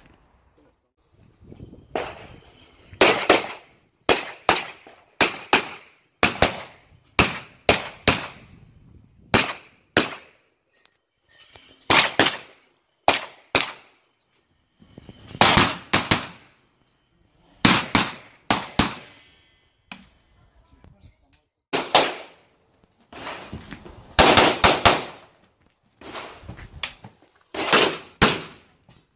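Pistol shots fired in quick pairs and short strings, with pauses between strings as the shooter moves between shooting positions on an IPSC stage. Each shot is a sharp crack with a short echo.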